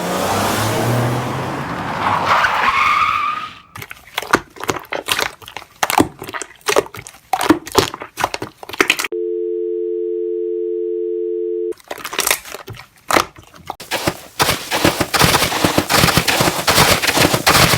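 Slime being squished and pressed by hand, giving dense irregular wet clicks and crackles, after a loud swelling noise at the start. For about three seconds in the middle a steady telephone dial tone plays.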